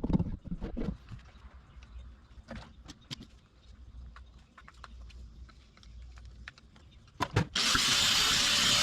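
Scattered clanks and knocks of metal parts being handled, then near the end a loud, steady grinding starts suddenly: an angle grinder's cutoff wheel cutting into a steel bearing race on a wheel hub.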